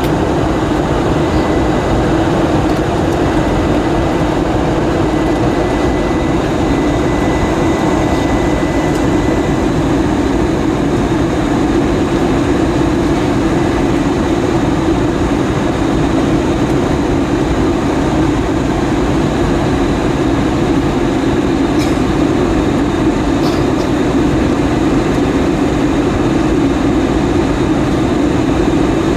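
Airbus A320 cabin noise: a steady, loud rush of airflow and engine noise inside the passenger cabin, strongest low in pitch.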